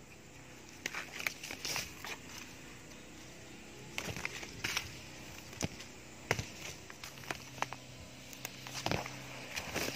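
Water apple tree shoots and leaves being snapped and torn off a branch by hand, in irregular clusters of crisp crackles and snaps with rustling.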